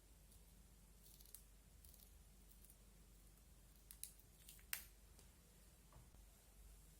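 Slime being handled, giving a few faint, crisp clicks and crackles, the sharpest a little past the middle, over near silence.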